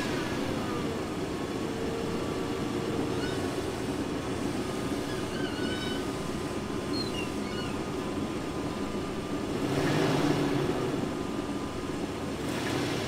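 1999 Toyota Land Cruiser's 2UZ-FE V8 idling just after a cold start, with a steady whirring whine over the engine note that the owner thinks comes from a failing power steering pump. The level swells briefly about ten seconds in.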